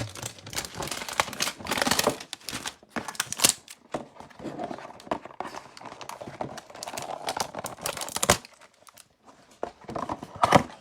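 Plastic wrapper of a trading-card pack being torn open and crinkled, in irregular crackling handfuls with a short lull near the end.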